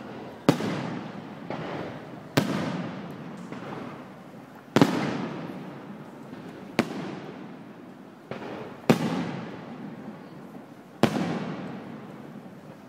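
Fireworks display: aerial shells bursting with sharp booms about every two seconds, six in all, each trailing off in a rumble that fades away.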